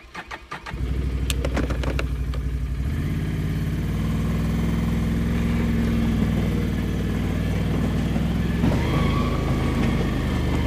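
ATV engine sputtering for about a second and catching, then running steadily as the quad drives off towing a loaded cart, with a few clicks and rattles in the first two seconds.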